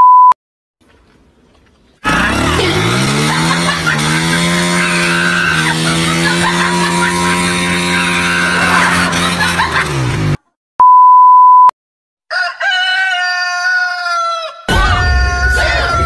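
A loud, steady electronic beep at one pitch, about a second long, sounds twice roughly eleven seconds apart. Between the beeps runs a long, steady pitched drone that slides down at its start. Near the end there is a gliding call like a rooster crowing.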